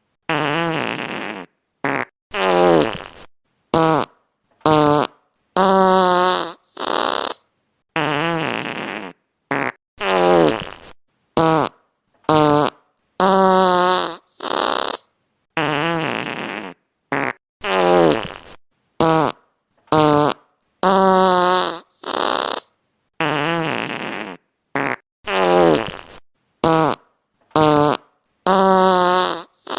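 Fart sound effects played one after another, some twenty in all, short and long, separated by brief gaps of silence. Some buzz at a steady pitch and several slide down in pitch.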